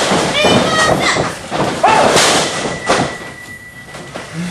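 Thuds from wrestlers grappling on a wrestling ring, mixed with short shouted voices. There is a sharp thud a little under two seconds in, another about three seconds in, and then the sound drops away briefly.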